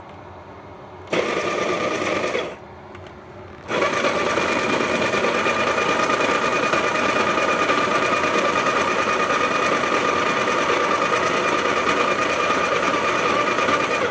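Breville dose control burr grinder grinding coffee beans: a short run of about a second and a half, a brief stop, then a long steady run of about ten seconds that cuts off at the end. The dose is not yet programmed, and it turns out too little.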